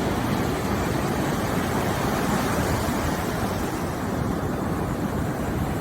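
Steady wind rushing on the microphone over ocean surf, an even noise with a heavy low rumble.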